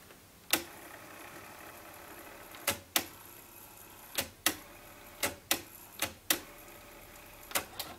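Technics RS-B100 cassette deck's transport clicking as it is stopped and then rewound in short bursts: one click, then about five pairs of sharp mechanical clicks a quarter of a second apart, with a faint steady whirr of the tape winding between them.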